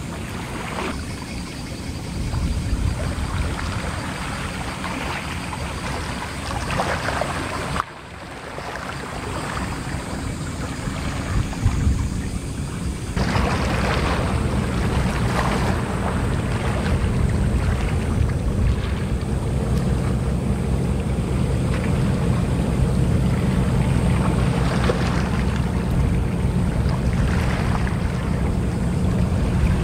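Outdoor harbour ambience dominated by wind rumbling on the microphone, with a steady low engine hum that comes up about halfway through.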